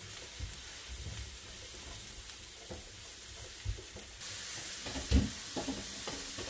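Chopped mushrooms, onions and garlic sizzling in oil in a non-stick pan as they are stirred, with small knocks of the utensil against the pan. The sizzle grows a little louder about four seconds in.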